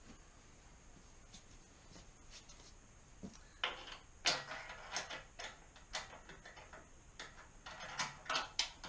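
Hand tools and metal parts being handled during a motorcycle exhaust install: a string of sharp clicks and knocks, some ringing briefly. They begin a few seconds in after a quiet stretch and come thicker toward the end.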